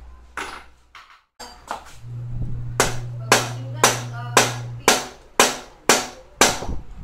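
Eight sharp, evenly spaced knocks, about two a second, on a bicycle's fork steerer and headset as the fork is being fitted, over a low steady hum.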